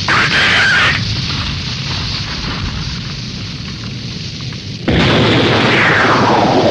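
Explosion sound effects from a TV soundtrack: a blast at the start that dies away into a rumble, then a second sudden blast about five seconds in, with a tone gliding steadily downward over it.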